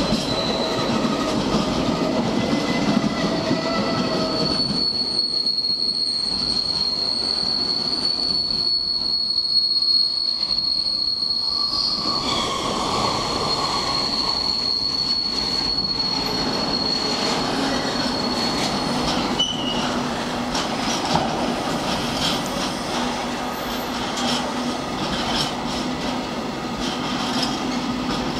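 Freight train of tank wagons rolling past, wheels clattering over the rail joints. A high, steady squeal from the wagons' wheels sets in a few seconds in and holds for about fifteen seconds before fading out.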